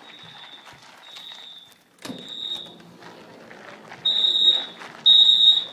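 Edwards 682-1CR mini fire-alarm horns sounding a high electronic honk in the temporal-three evacuation pattern. Three short honks a second apart, a pause, then three more, the second set much louder. This is the building's fire alarm in alarm during a drill.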